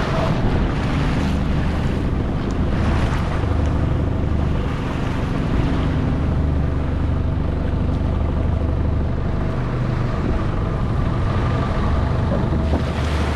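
Long-tail boat's engine running steadily at cruising speed, with wind on the microphone and water splashing against the hull.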